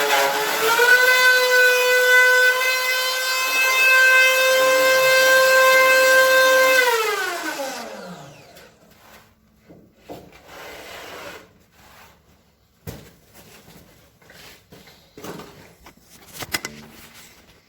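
Electric power tool motor running at high speed with a steady high-pitched whine, dipping briefly under load near the start, then switched off about seven seconds in and spinning down with a falling pitch. Scattered knocks and clicks of tool and wood handling follow.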